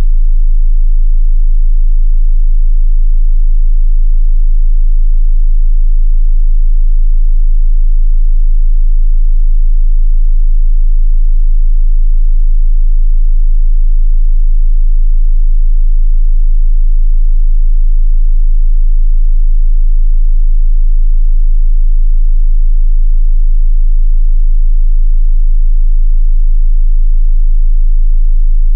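A steady, loud 27 Hz sine-wave test tone: one very deep, unchanging bass hum for testing subwoofers.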